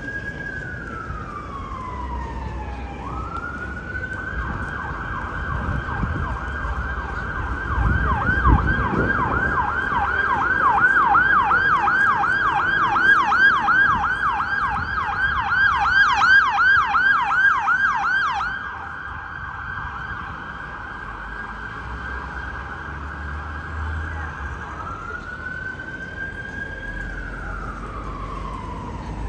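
Emergency vehicle siren in a slow wail that switches, a few seconds in, to a fast repeating yelp for about fifteen seconds, then drops back to a slow wail near the end. Traffic rumbles underneath, loudest about eight seconds in.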